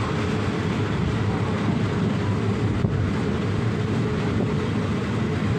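Steady low rumble of a train's diesel engine running.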